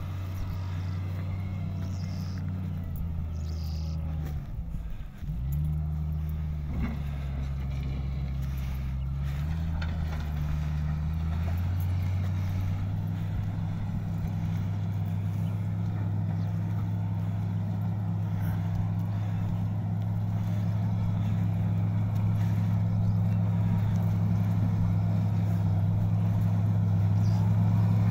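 Wheel loader's diesel engine running under load, its pitch dipping and changing with the throttle twice in the first half, then holding steady and growing louder toward the end as the machine comes closer.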